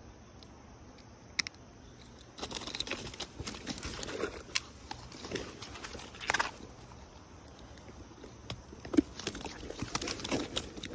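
Close-up handling noises of a caught trout being strung on a fish stringer: irregular clicks, rustles and wet slaps in two bursts, about two seconds in and again about eight seconds in.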